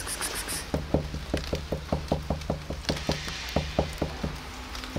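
A hand tapping quickly on the slats of a painted wooden bench: a run of about sixteen knocks, roughly five a second, starting about a second in and stopping about a second before the end.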